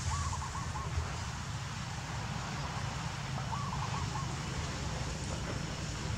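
Outdoor ambience with a steady low rumble of wind on the microphone; a bird gives a short warbling call twice, just after the start and about four seconds in.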